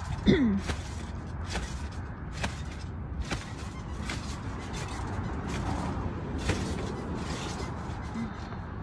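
Trampoline mat and springs knocking and creaking under a child's bounces, irregular sharp clicks about once a second at first, over a steady low background rumble.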